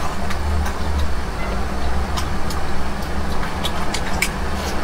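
Close-miked chewing and wet mouth clicks as a person eats saucy fried food, over a steady low hum.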